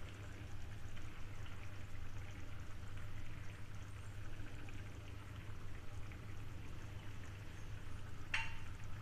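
Coconut-milk egg gravy simmering in a pan: a steady fine bubbling and popping over a low steady hum, with one short sharp click about eight seconds in.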